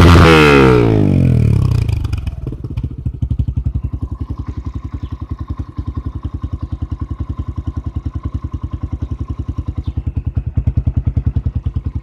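Yamaha XTZ 125's single-cylinder four-stroke engine running through an aftermarket FMF-style Lodi Racing 4.1 muffler. A rev dies away over the first couple of seconds, and the engine settles into a steady idle with an even exhaust pulse.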